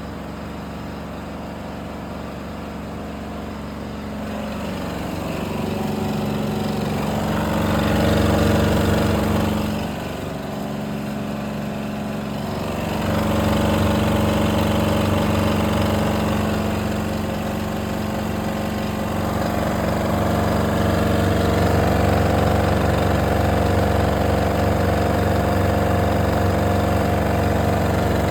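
An engine running steadily with a low hum, growing louder, dipping briefly about ten seconds in, then rising again.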